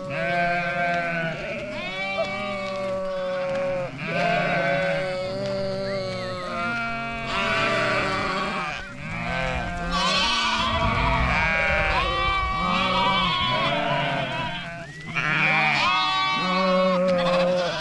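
A large flock of sheep and lambs bleating, many calls of different pitches overlapping without a break.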